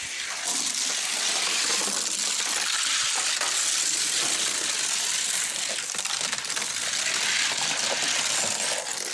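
Die-cast 1:64 toy cars, a Johnny Lightning 1929 Model A truck and a Hot Wheels Shoe Box, rolling fast down a gravity race track. Their small wheels on the track make a steady high hiss with scattered faint clicks.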